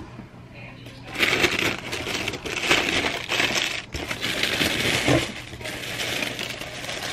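Tissue paper crinkling and rustling as it is unfolded and pulled back inside a shoebox. It starts about a second in and keeps going, with short breaks.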